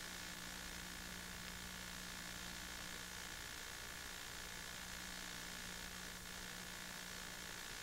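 Steady hiss with a faint low hum and a higher whine, unchanging and with no other sound: the noise floor of a silent home-movie film transfer.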